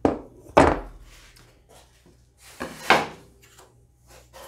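Wooden boards being handled and set down on a plywood shop table: two sharp knocks in the first second, two more about two and a half seconds in, with light rubbing of wood between.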